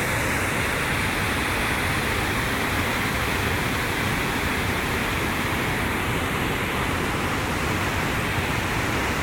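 Waterfall rushing: a steady, unbroken noise of falling water, very noisy and without a pause.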